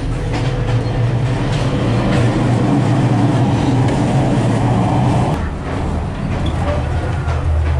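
Running noise of an S14 class diesel multiple-unit train in the vestibule between carriages: a loud steady rumble of wheels on rail with a low hum. About five seconds in, the hum drops lower as the doorway into the next carriage is passed.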